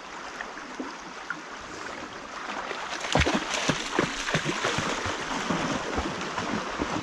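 A dog bounding and splashing through a fast-flowing, shallow river over the steady rush of the water. The splashing picks up sharply about three seconds in and carries on as a run of quick splashes.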